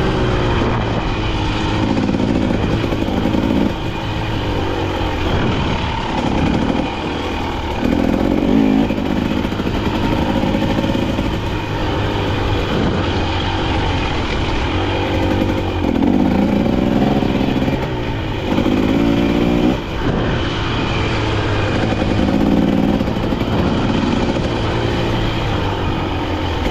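KTM dirt bike engine being ridden off-road, revving up and dropping back over and over as the throttle is worked, every couple of seconds.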